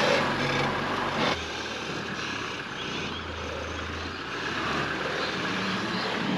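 Toyota Hilux crawling through deep sand. For the first second or so it is heard close up, loud, with the engine and the tyres churning sand. About 1.3 s in the sound drops suddenly to a quieter, steady low engine hum heard from farther off.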